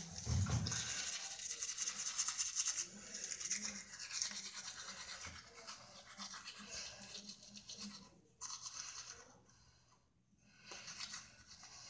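Toothbrush scrubbing teeth in quick back-and-forth strokes, a scratchy rasping that weakens and briefly stops about ten seconds in before starting again.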